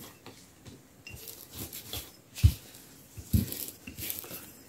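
Dough being rolled out on a worktop with a glass bottle used as a rolling pin: soft rubbing with a few short dull knocks, the loudest about halfway through and again a second later.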